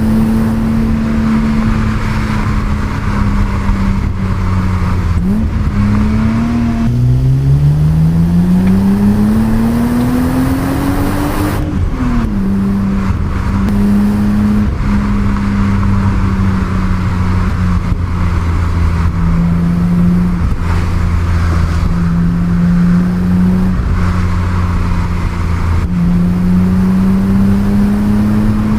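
Stock 1988 BMW 325i E30's 2.5-litre straight-six under way, holding steady revs. The revs fall about six seconds in, climb steadily through a gear until about twelve seconds in, then drop at a gear change and hold again with slight rises and falls.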